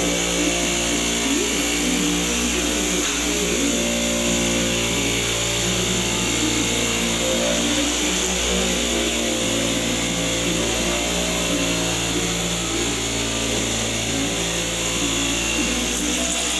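Angle grinder with a cut-off disc running steadily as it cuts through thin sheet metal.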